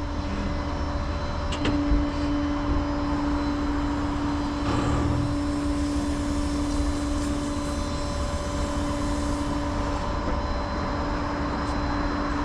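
A vehicle engine idling steadily with a low drone; after a click about two seconds in, a steady hum joins it and holds.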